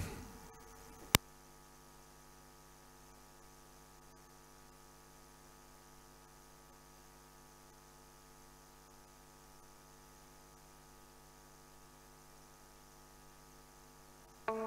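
Faint, steady electrical mains hum in the audio feed, with a single sharp click about a second in.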